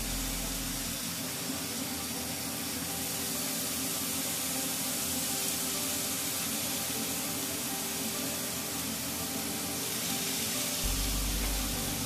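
Raw bacon strips sizzling in a hot frying pan as more strips are laid in: a steady hiss, with a low steady hum underneath.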